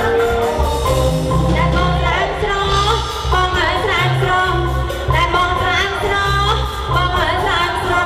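Music with a heavy bass beat pulsing in regular blocks under a high melody that bends up and down in quick ornaments.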